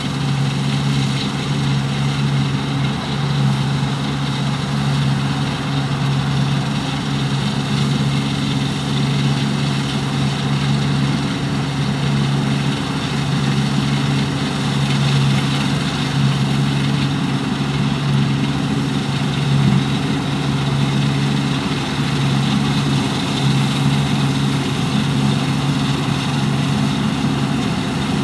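Deutz-Fahr 6095 HTS combine harvester running steadily: an unchanging low engine drone with a broad mechanical noise over it.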